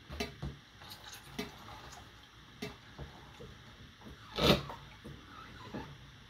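Hand-cranked tomato strainer at work, with tomatoes pushed down into its plastic hopper with a plunger and pressed through the screen. It gives scattered small clicks and knocks, with one louder thump about four and a half seconds in.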